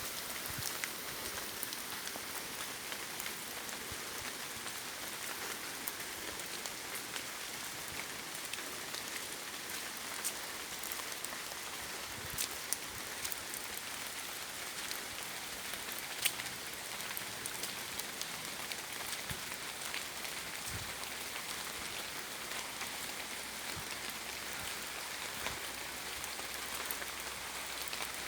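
Steady rain falling in a wet forest: an even hiss of rainfall with scattered louder single drops.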